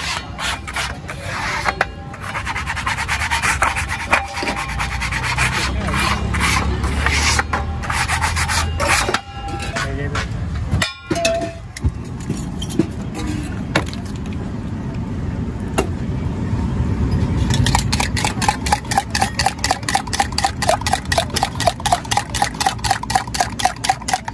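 Metal spatula scraping and chopping egg on a flat iron griddle, with a fast steady rhythm of strokes, about three or four a second, in the last six seconds.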